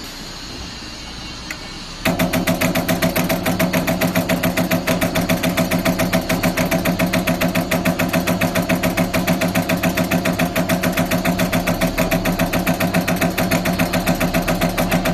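CNC turret punch press running with a steady hum, then about two seconds in starting a rapid, even run of punch strokes, several hits a second, as it punches small holes in sheet metal. A steady drive hum runs under the hits.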